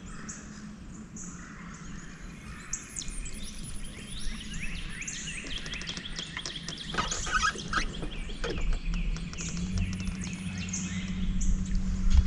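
Songbirds chirping and trilling, several overlapping at once. A low steady hum, with low rumble, grows louder in the last few seconds.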